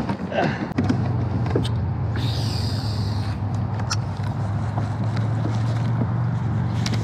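Steady low hum of the kayak's drive moving it across the water, starting about a second in, with a brief hiss a little over two seconds in.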